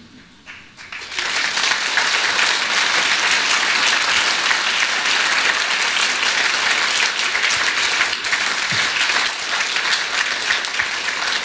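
Large audience applauding, the clapping building about a second in and then holding steady.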